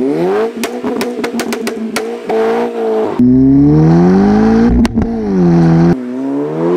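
Straight-piped, decatted VW Golf Mk5 GTI's turbocharged 2.0-litre four-cylinder revving hard through its exhaust, with a quick string of sharp pops and crackles as the revs hold in the first two seconds. The revs then rise and fall through gear changes, with a single sharp bang about five seconds in.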